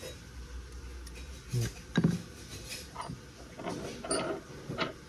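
Small steel pistol parts and a thin hand tool clicking and clinking against each other as they are handled, in several separate light knocks, the loudest about two seconds in and a quick cluster around four seconds.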